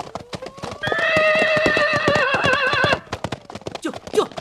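A horse whinnies, one long wavering call of about two seconds that starts about a second in, over the quick hoofbeats of horses breaking into a gallop.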